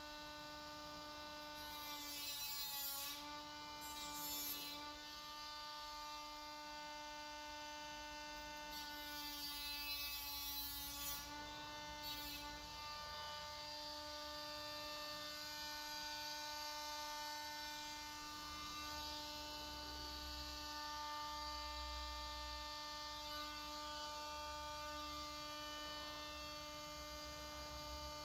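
Small cordless power tool's motor running steadily at a high pitch. Twice, about 3 seconds in and again around 10 seconds, its pitch sags and a harsher hiss rises as it is pressed into the plastic grille.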